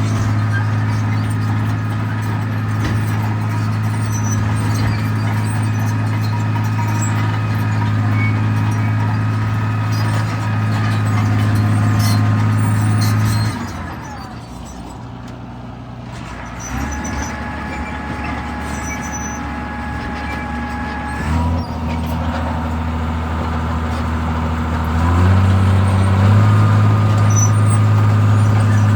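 Cat D4C LGP bulldozer's diesel engine running hard at high throttle while pushing, with a high whine riding above the engine note. About 13 seconds in the engine drops off and runs slower for several seconds, then revs back up to full speed near the end.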